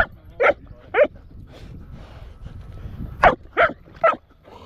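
Dog barking in short, sharp barks: three about half a second apart, then, after a pause of about two seconds, three more.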